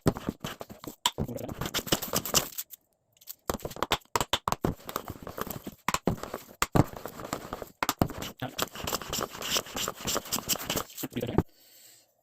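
Wooden hand plane scraping over a board in a series of test strokes, with crackling and crinkling, most likely shavings curling off, and a pause of about a second in the middle.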